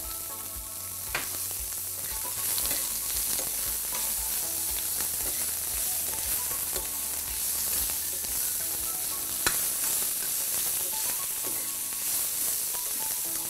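Sliced onions sizzling steadily in hot oil in a frying pan as they are caramelized with a sprinkle of sugar. A metal spoon stirs them, clicking against the pan about a second in and again near ten seconds.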